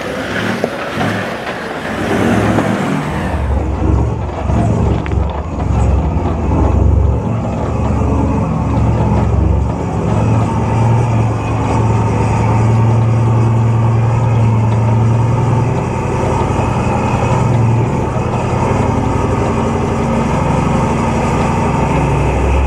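Four-wheel drive's engine running steadily on a rocky outback track. A broad rushing noise is loudest for the first three or four seconds, then the engine hum takes over, swelling and easing a little.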